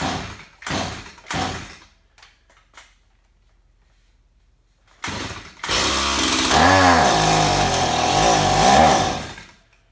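Stihl MS170 two-stroke chainsaw being pull-started with the choke off: a few quick pulls of the starter cord, a pause, then another pull, and the engine catches about five seconds in, runs for a few seconds with its speed rising and falling, and cuts out near the end. It is still burning through leftover bar-and-chain oil in the carburetor after the tank was filled with that oil.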